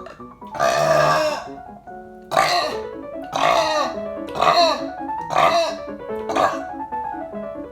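A woman burping loudly six times over background music: one long burp about half a second in, then five shorter ones about a second apart.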